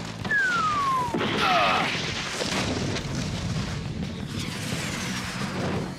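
Cartoon sound effects: a falling whistle about a second long, then a boom whose rumbling noise carries on and slowly fades.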